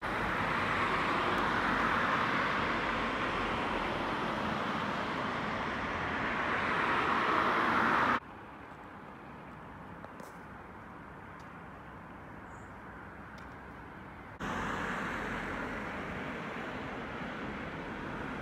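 Road traffic noise: a steady hiss of passing cars that swells toward a peak, then cuts off abruptly to a much quieter outdoor hush with a couple of faint clicks, and returns just as abruptly about six seconds later.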